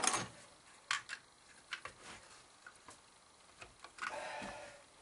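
Small clicks and knocks of a Chevy HEI distributor cap being handled and seated onto the distributor housing, with a short scraping rattle about four seconds in.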